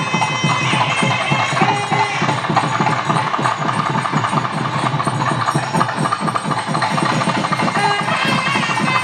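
South Indian temple music: a nadaswaram playing a held, bending melody over fast, continuous thavil drumming.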